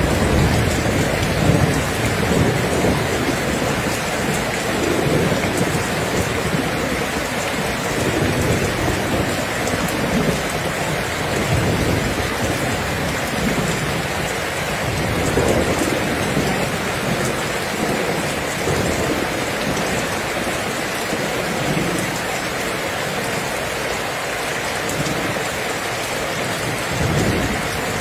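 Steady heavy rain falling on surfaces, with low rolling rumbles of thunder swelling and fading under it, strongest at the start and again near the end.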